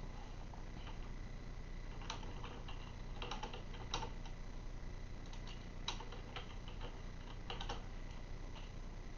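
Scattered faint clicks and taps, about a dozen at irregular spacing, some in quick clusters of two or three.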